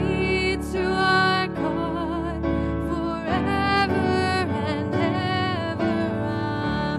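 A woman singing a slow worship song, accompanying herself with sustained chords on a Kawai MP6 digital stage piano.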